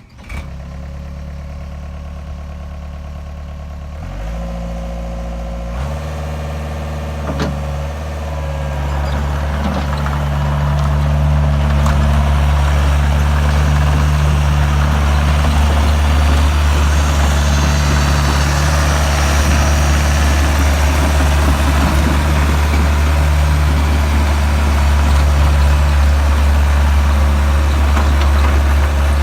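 Takeuchi TL130 skid steer's diesel engine starting and idling, stepping up in speed a couple of times in the first few seconds, then throttling up over several seconds to run steadily at a higher, louder speed.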